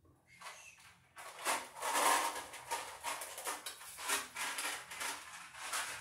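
Hand tools and electrical wire being handled: a quick, irregular run of clicks, scrapes and rustles, loudest about two seconds in.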